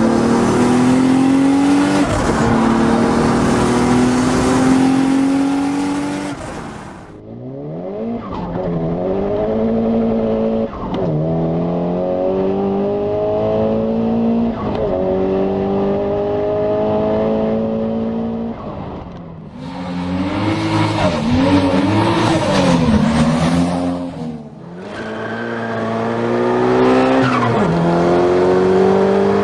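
Turbocharged car engines accelerating hard in a run of separate clips: each engine rises in pitch through a gear and drops back at the shift, again and again. In one clip the revs swing up and down several times.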